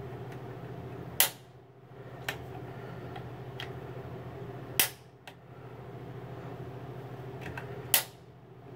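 Piezo pilot igniter on a propane water heater's gas control valve being pressed repeatedly: four sharp snaps a second or more apart, with a few fainter clicks between, over a steady low hum. The pilot has not lit yet because air is still being purged from the gas line.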